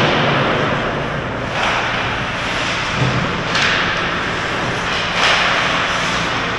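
Ice hockey skates scraping and carving on rink ice in several short hissing strokes, with an occasional thud, over a steady low hum.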